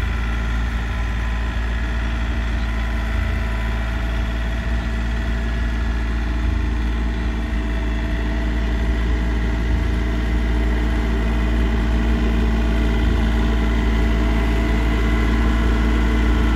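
Compact front-loader tractor's engine running steadily, growing gradually louder as the tractor drives closer.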